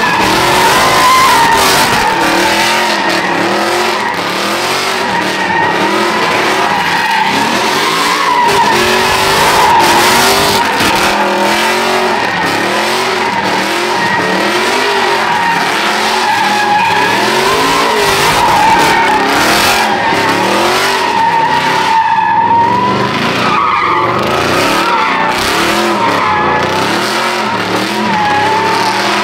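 A car spinning its tyres in a long burnout, the tyres squealing steadily at a high pitch while the engine note swings up and down about once a second.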